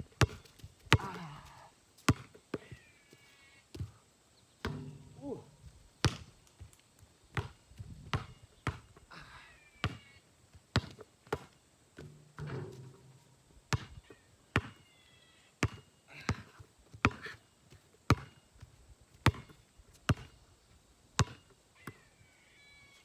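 Repeated sharp thumps, one about every 0.7 seconds, like something hard bouncing or striking a surface, with a few short high squeaks and brief low vocal sounds in between.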